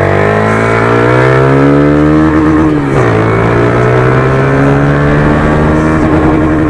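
Honda CG Start 150 motorcycle engine and exhaust under hard acceleration in first gear, revs climbing steadily, then a quick drop at the shift into second about three seconds in, and climbing again until the revs level off near the limiter.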